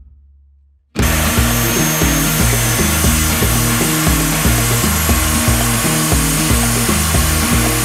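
Compound mitre saw running and cutting metal stock, a steady loud cutting noise that starts suddenly about a second in, with background music carrying a stepped bass line underneath.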